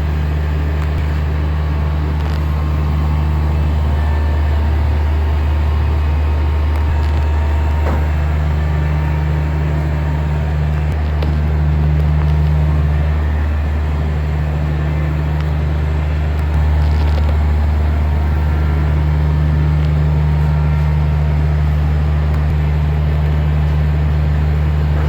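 Window-type air conditioner running with its compressor on after a refrigerant recharge: a loud, steady low hum with small shifts in level.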